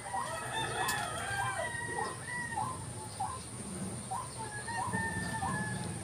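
Chickens calling: a rooster crowing in the first couple of seconds, with short clucking calls repeating a few times a second throughout. A steady high hiss runs underneath.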